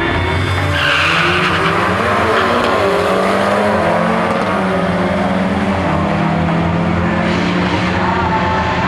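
Turbocharged four-cylinder engine of a Stage 3 tuned VW Golf R Mk7 revving hard under load, its note climbing and changing pitch in steps.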